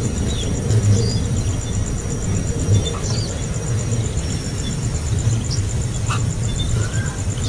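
Nestling birds giving a few short, high begging chirps, over a steady low rumble and a fast, evenly pulsing high tone.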